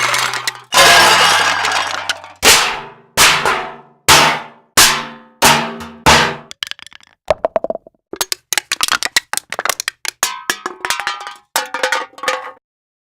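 A run of sound-effect glass hits and breaks: sharp ringing strikes, each dying away quickly, about six of them in a row with roughly two-thirds of a second between them. They are followed by a quick, dense patter of clinks and tinkling that stops shortly before the end.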